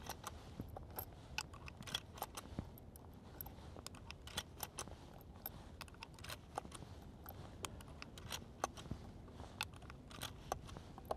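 Cartridges of .38 Special being thumbed one by one through the loading gate into the tubular magazine of a Winchester 1873 replica lever-action rifle: a string of small, irregular metallic clicks.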